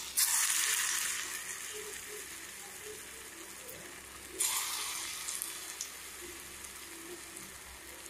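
Hot mustard oil in a kadai sizzling as balls of carrot and radish pakoda batter are dropped in by hand. A sudden burst of sizzling comes just after the start and again about four and a half seconds in, each fading to a steady, quieter frying hiss.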